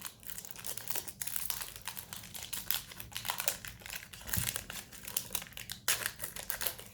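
A trading-card pack wrapper being torn open and crinkled by hand, a continuous crackle with a few sharper rips.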